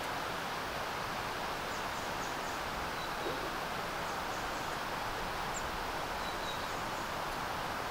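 Steady outdoor ambience: a constant rushing hiss, with faint high chirps of small birds a few times.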